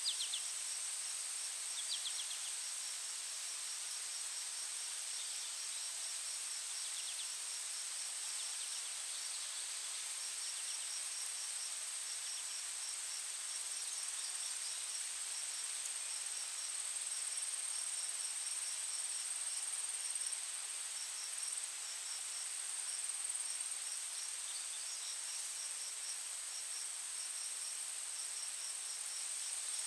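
Forest ambience dominated by insects: a steady high-pitched drone with a rapid, ticking insect trill that comes and goes above it, and a few brief bird chirps.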